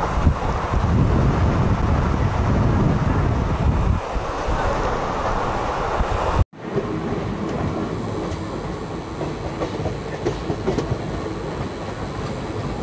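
Black Diamond Superfast Express passenger coach running at speed on the rails, with a heavy low rumble and wheel clatter. The sound cuts out abruptly about six and a half seconds in, then resumes as a somewhat quieter, steadier running noise.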